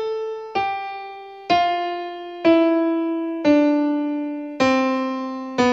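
Electronic keyboard with a piano voice playing single notes slowly, about one a second, each left to ring and fade before the next. The notes step down the scale one at a time, a right-hand descending-scale finger drill.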